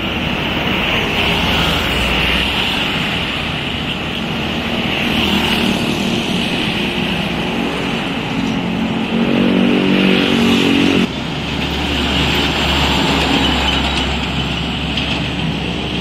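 Road traffic passing: truck and motorcycle engines with tyre noise. One engine note stands out louder about nine to eleven seconds in, and the sound changes abruptly near eleven seconds before the traffic carries on.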